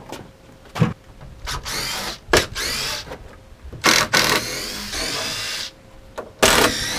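Power drill running in three bursts, each whining up in pitch as it spins, with a few sharp knocks between them, as screws are driven out of a lumber lifting frame being taken apart.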